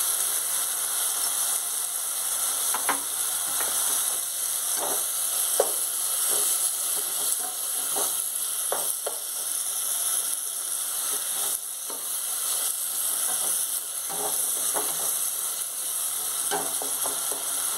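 Chopped tomatoes and small onions frying in sesame oil in a nonstick pot: a steady sizzle, with scattered scrapes and knocks as a plastic slotted spatula stirs them.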